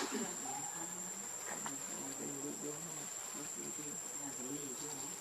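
Insects droning with one steady, unbroken high-pitched whine, with faint distant voices underneath.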